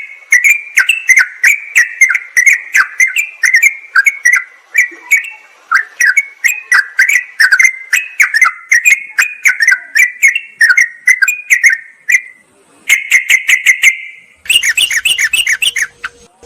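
Yellow-vented bulbuls (trucukan) giving rapid, bubbly chattering calls in a dense, continuous stream, played as a lure recording. There are two short breaks about twelve and fourteen seconds in, and a busier burst of calls near the end.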